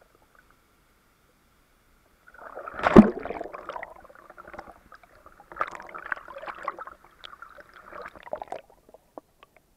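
Water sloshing and splashing against a waterproof action camera held at the surface of a pool, muffled by its housing. It starts about two seconds in, with a sharp knock of water about three seconds in, then a second spell of splashing later on.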